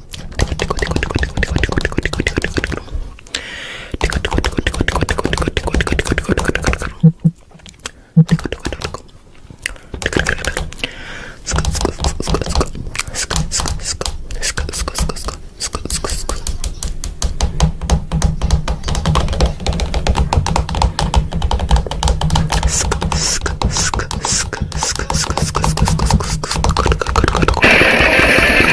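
Beatboxing-style mouth sound effects: fast, dense clicks over a steady low buzz, with short breaks about 3, 7 and 9 seconds in and a brighter, louder burst near the end.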